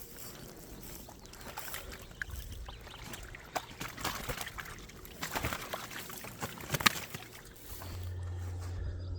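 Water sloshing, splashing and dripping, with irregular sharp ticks and rustles: a keepnet full of fish being lifted out of the water. A steady low hum starts near the end.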